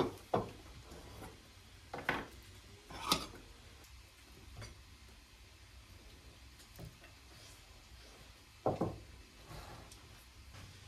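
Plates and cutlery clinking and knocking on a dining table as food is served: a few separate knocks in the first three seconds and one more, the loudest, near the end.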